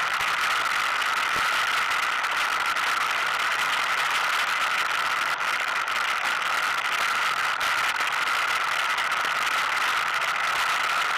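ATV engine running steadily while the quad rides over a rocky dirt trail; an even, unchanging hissy drone with no revving.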